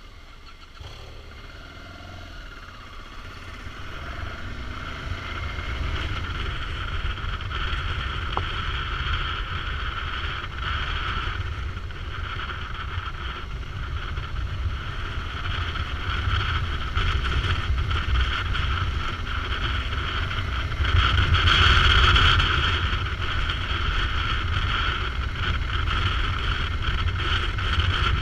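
BMW F650 GS dual-sport motorcycle riding along, its engine and road noise mixed with heavy wind rumble on the microphone. It grows louder over the first several seconds, then runs on steadily, loudest a little past two-thirds of the way through.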